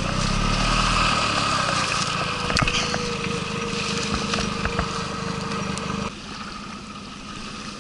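Small outboard motor running steadily at low revs, with a few light knocks. The engine sound stops abruptly about six seconds in, leaving a quieter steady rush of water and wind.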